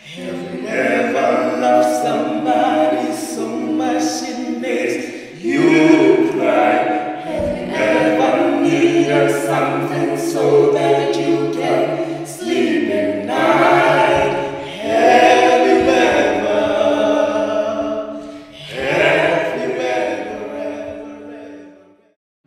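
Unaccompanied group of voices singing in harmony, in phrases of a few seconds with short breaks between them, fading out near the end.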